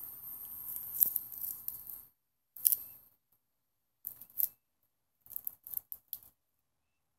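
Scratchy rubbing and clicking from a phone being handled against its microphone. A steady scrape runs for about two seconds with a sharp click about a second in, then breaks into short crackles separated by silence.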